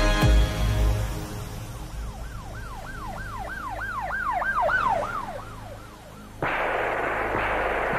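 Police-style siren sound effect, a fast rising-and-falling wail about two to three times a second that swells and then fades. It follows a thump as the music ends. About six and a half seconds in, a sudden loud rush of noise cuts in.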